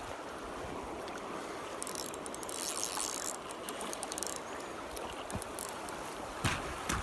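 Bow River water flowing steadily. Partway through there is a run of rapid, dense clicking.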